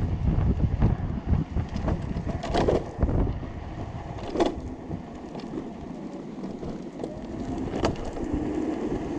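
Wind buffeting the microphone over the rumble of a homemade electric go-kart, driven by hoverboard hub motors, rolling along a paved path. The buffeting is heavy for the first three seconds, then eases. A few sharp knocks or rattles come through along the way.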